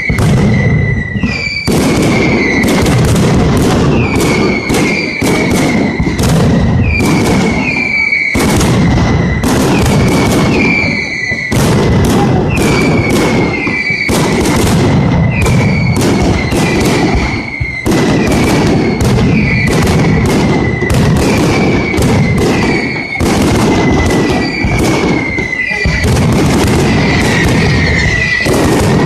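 Valencian mascletà: a continuous, loud barrage of firecracker bangs, mixed with short falling whistles that come roughly once or twice a second.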